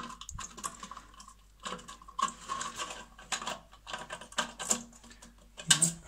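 Irregular plastic clicking and scraping as the quarter-turn inlet (float) valve of an Ideal Standard toilet cistern is twisted and pushed back into its fitting. A louder cluster of clicks comes near the end as the valve seats.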